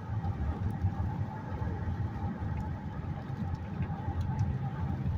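Car cabin noise while driving: a steady low rumble of road and engine, with a faint steady hum above it.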